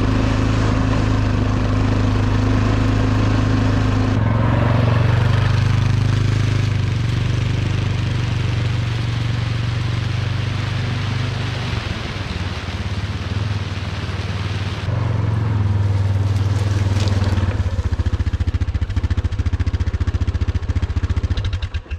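Bulldozer engine running steadily, its note shifting a few times. In the last few seconds it runs with a distinct pulsing beat, then cuts off abruptly at the very end.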